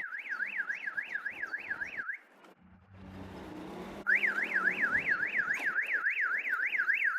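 Electronic warbling siren tone, sweeping up and down about four times a second. It cuts out after about two seconds, leaving a faint low hum, and starts again about four seconds in.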